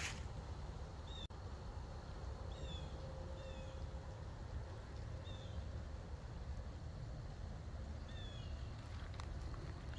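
A bird calling: short, high chirps that slide downward, repeated every second or two, over a steady low rumble.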